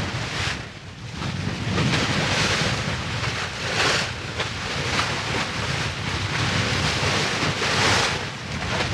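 Wind buffeting the microphone over the rush of sea water along the hull of a sailing catamaran under way, swelling and easing.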